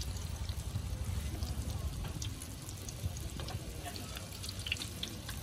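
Strips of dough deep-frying in a large pan of hot oil: a steady sizzle with scattered small crackles and pops, over a low rumble.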